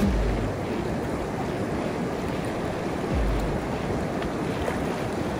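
River water rushing and lapping at the shore in a steady wash, with wind buffeting the microphone, most strongly at the start and about three seconds in.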